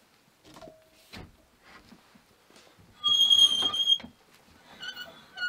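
A loud, high, steady squeak about three seconds in, lasting about a second, then a few shorter squeaks near the end, among light knocks and rustling as a rope is handled.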